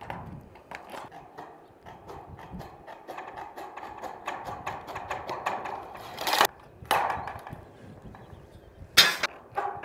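Hand snips cutting and prying open the folded hem on a length of metal roof trim: a run of small clicks and crunches, with two louder sharp metallic snaps, about six seconds in and near the end.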